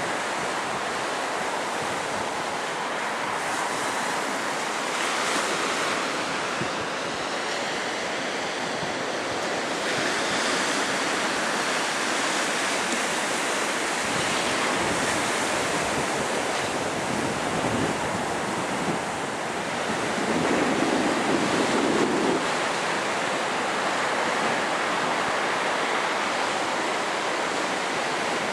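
Sea surf breaking on a sandy beach, a steady wash of waves with wind on the microphone. It swells louder for a couple of seconds about twenty seconds in.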